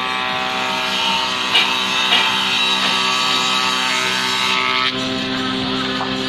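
Combination jointer-thicknesser planing a hardwood board, its cutterhead and motor running steadily with a hiss of cutting over the machine's hum. About five seconds in the cutting hiss drops away as the board clears the cutters, and the machine runs on unloaded.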